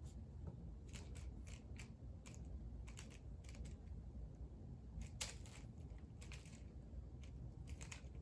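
Rubik's cube being turned by hand: scattered clusters of light plastic clicks from the layers snapping through their turns, with pauses between clusters. The loudest click comes about five seconds in.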